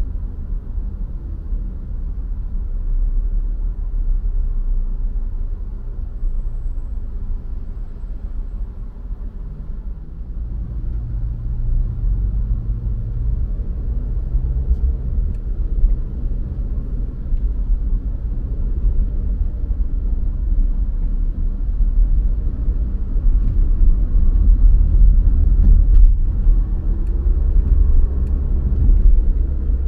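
Car driving through city traffic: a steady low rumble of engine and road noise that grows somewhat louder in the last third.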